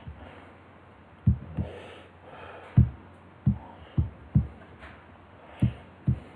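About eight soft, dull, low clicks at irregular intervals: mouse and keyboard clicks while drafting on a computer, picked up through the desk.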